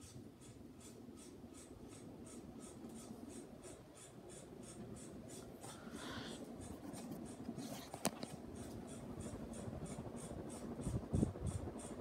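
Running ceiling fans, with a Hunter Reverse Aire in view: a faint low hum with a soft, regular tick about three times a second. One sharp click about eight seconds in.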